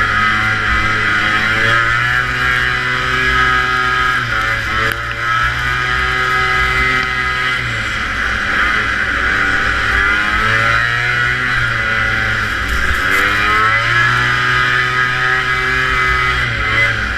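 Antique racing snowmobile's two-stroke engine at racing speed, the revs climbing and then dropping off about every four seconds as the throttle is opened and eased.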